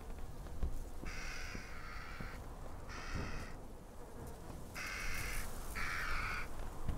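Crow cawing four times, harsh drawn-out calls with the last two close together, over a low steady rumble.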